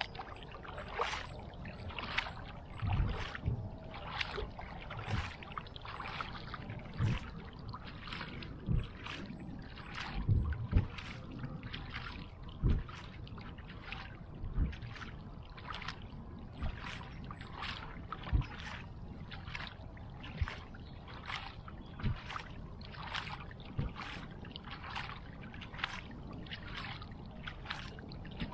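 Kayak paddle strokes on calm lake water: a short splash and drip about once a second as the blade dips in, with a few low thumps among them.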